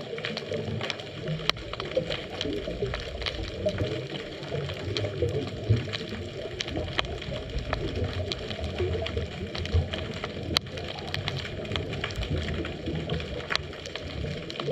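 Underwater ambience picked up by a GoPro in its dive housing: a steady low rumble of moving water with scattered sharp clicks and crackles.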